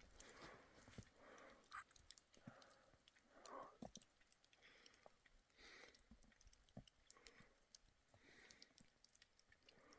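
Near silence, with faint scattered clicks and soft rustles.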